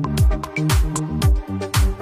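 Background electronic dance music with a steady beat: a kick drum about twice a second, with hi-hats and a bass line.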